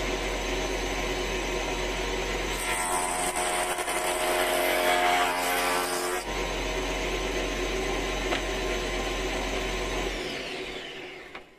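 Small bench jointer's electric motor and cutter head running steadily. It grows louder and rougher for a few seconds in the middle as the knives plane the face of a clamped ash blank. Near the end it is switched off and winds down with a falling whine.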